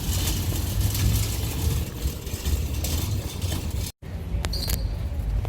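Steady low rumble of vehicle noise, broken by a brief dropout about four seconds in.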